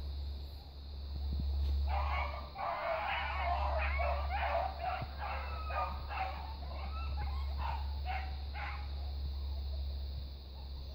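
Several beagles baying and yelping together off-camera, starting about two seconds in and dying away shortly before the end, over a steady low rumble.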